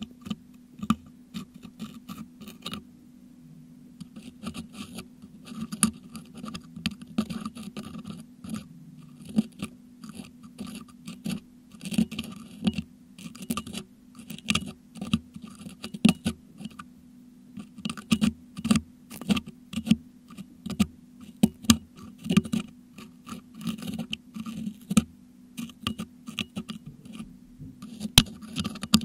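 Metal dental hook picking and scraping crushed meringue out of a Blue Yeti microphone's metal grille, picked up close by the microphone itself. Irregular scratches and sharp clicks play over a steady low hum.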